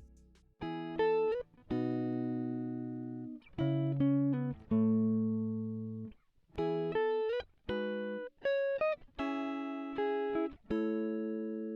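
Background music: a plucked guitar playing chords and short phrases, each note ringing and fading, with brief pauses between phrases.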